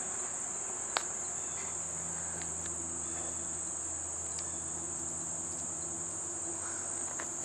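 Steady high-pitched drone of an insect chorus, crickets or similar, with a single sharp click about a second in.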